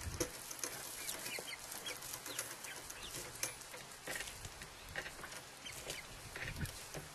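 Chickens clucking quietly, a steady scatter of short calls.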